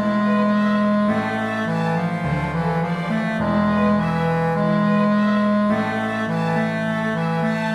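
Background music of slow, sustained instrumental notes, the chord changing every second or two.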